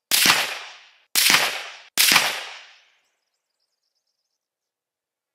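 Three rifle shots in quick succession, each a sharp crack that rings out and fades over most of a second, the second about a second after the first and the third under a second after that.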